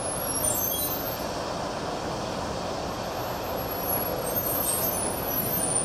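Steady, even hiss of machinery running, with no distinct knocks or strokes.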